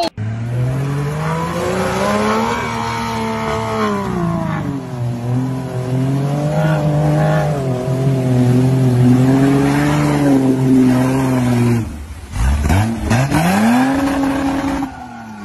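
4x4 SUV engine revving hard under load as it pushes through deep mud, its pitch rising and falling with the throttle. About twelve seconds in it drops away, then one more rev rises and falls while a wheel spins in the mud.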